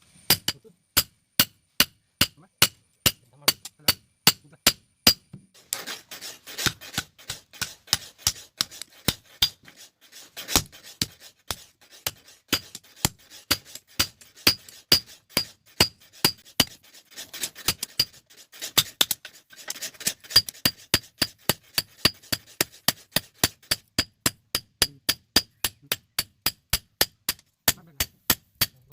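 A blacksmith's hammer strikes steel on an anvil in a fast, even rhythm of about three blows a second, each blow ringing. From about six seconds in a rough, rasping noise runs underneath the blows.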